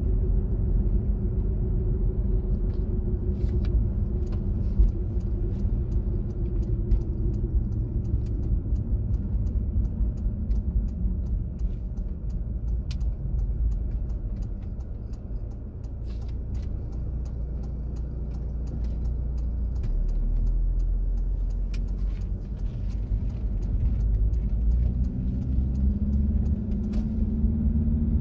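Car driving: steady low engine and road rumble, with scattered faint clicks. The engine note drops away over the first several seconds and picks up again near the end.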